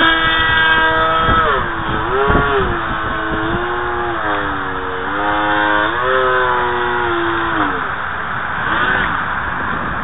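Turnigy 2632 1500kv brushless outrunner motor and propeller of an electric RC foam jet whining, its pitch falling, dipping and rising as the throttle is worked on a low approach. The whine dies away about eight seconds in as the motor is throttled back for landing, leaving wind rumbling on the microphone.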